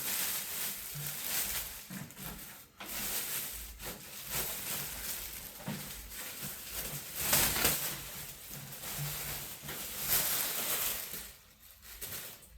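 Packaging being handled and pulled off a new air fryer: an irregular rustling and crinkling that swells a few times and dies down near the end.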